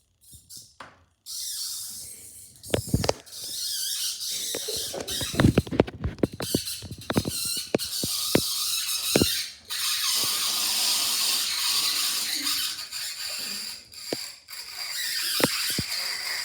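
Bathtub draining loudly: a steady rushing hiss of water down the plughole, broken by frequent gurgles and sharp pops and squeals as air is sucked through the drain.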